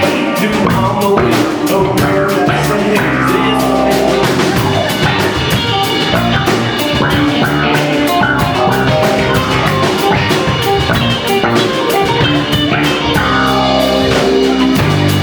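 A live rock band playing guitars over a driving drum-kit beat.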